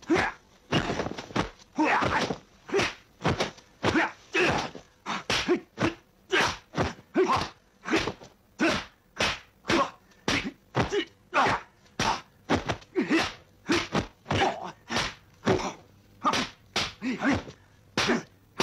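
Dubbed kung fu fight sound effects: a fast, continuous series of punch-and-block whacks, about two a second.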